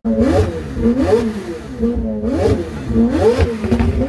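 Supercar engine being revved in short throttle blips, about one a second, the pitch rising sharply and falling back each time.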